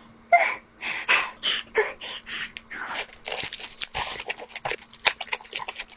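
Close-miked eating sounds: a person biting and chewing lobster, a quick, irregular run of crisp, wet mouth noises.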